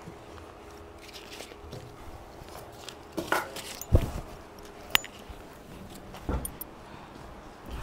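Faint steady room hum with a few scattered knocks and thumps: a soft knock about three seconds in, a loud low thump about four seconds in, a sharp click about a second later, and another thump near the end.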